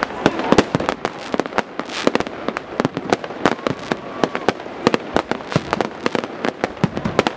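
Fireworks display: aerial shells going off in a dense, irregular barrage of sharp bangs and crackles, several a second, with no break.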